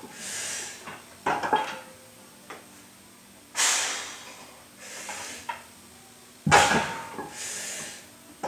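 Iron weight plates on a plumbing-pipe yoke squat bar, loaded with about 328 pounds, clank with a short metallic ring as the bar is lifted and set back down during bottom-start squats. There are two clanks, the louder one about six and a half seconds in, with forceful exhales from the lifter between them.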